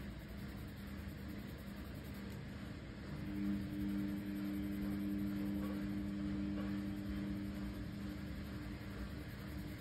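A steady low machine hum, two notes held together, that swells about three seconds in and eases off near the end, over a faint steady hiss.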